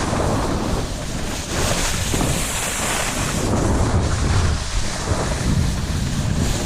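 Wind buffeting the microphone: a loud, steady rushing hiss with an uneven low rumble underneath.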